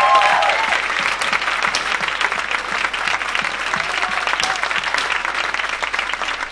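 Audience applauding, a dense steady clapping, with the last held music notes cutting off less than a second in.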